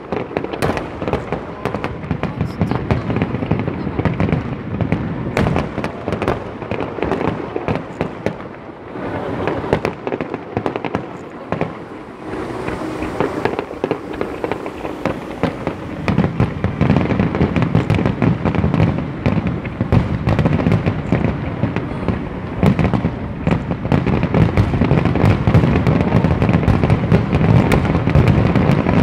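Aerial fireworks display: shells bursting in rapid succession with dense crackling between them. The barrage gets louder and more continuous about halfway through.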